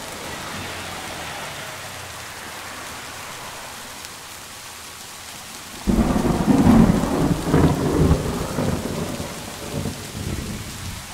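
Steady rain hiss, then about six seconds in a sudden loud clap of thunder that rolls and rumbles unevenly, fading over about five seconds.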